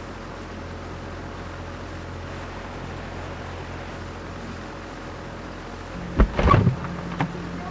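Steady low hum and hiss, broken about six seconds in by a sudden loud clatter of several quick impacts that lasts about half a second.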